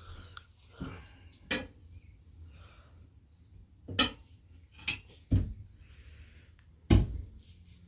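Irregular knocks and thumps as a new tire is worked by hand onto a motorcycle wheel rim: about six separate hits, the loudest a deep thump about seven seconds in.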